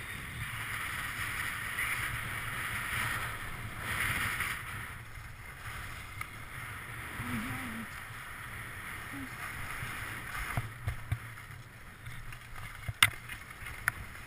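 Skis sliding and carving over groomed snow: a steady scraping hiss that swells with the turns, over a low rumble on the camera microphone. A few sharp clicks near the end.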